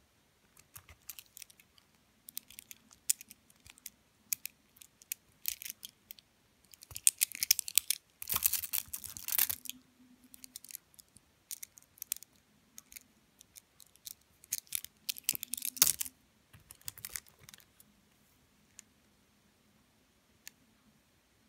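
Handling noise of polished gemstones and a bead bracelet: hard stones and beads clicking and rattling against each other as they are picked up and turned in the hand, in scattered bursts with the busiest clattering about a third of the way in and again past the middle.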